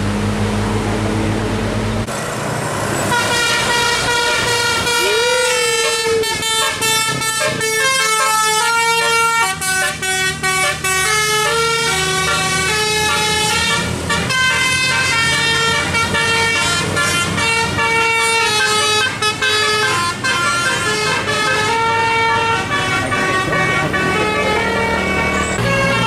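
Tour bus's musical multi-trumpet air horn ('telolet') playing a tune of held notes that step from pitch to pitch, starting about two seconds in over the low drone of the engine.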